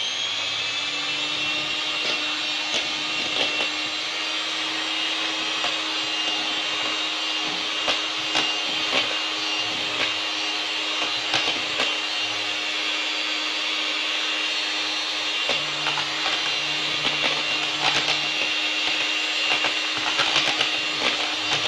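Electric hand mixer beating crêpe batter of eggs, flour and milk. It spins up with a rising whine at the start, then runs at a steady speed with occasional light clicks.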